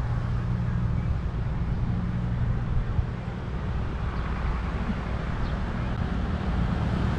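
Motorbike engine running steadily, with a rushing hiss over it.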